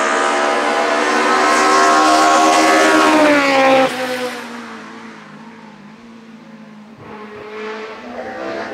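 A small touring-class hillclimb race car at high revs, coming close and going past; its pitch falls as it passes about three and a half seconds in, then the level drops suddenly to a fainter engine sound that fades up the hill. Near the end a loud revving engine rises again.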